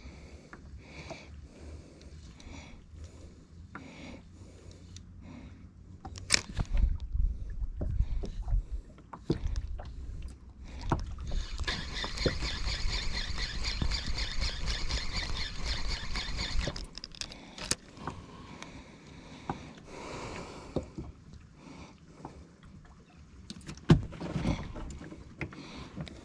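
Spinning reel cranked fast for about five seconds, a rapid whirring, while the jigging rod is worked with rubbing and knocks of handling and a low rumble on the microphone.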